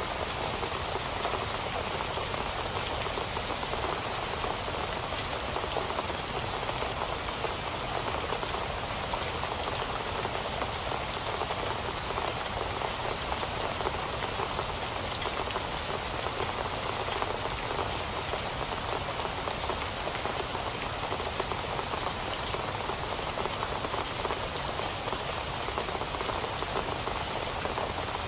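Steady rain falling on a surface, a dense even patter of many drops with no change in intensity.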